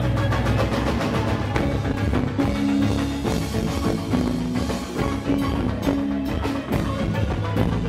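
Up-tempo band music with a drum kit and percussion beating out a steady rhythm under sustained melodic notes.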